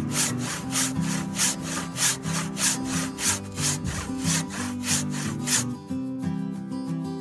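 Handsaw cutting through a 6x6 timber, rasping in even strokes about three times a second, stopping near the end. Acoustic guitar music plays underneath.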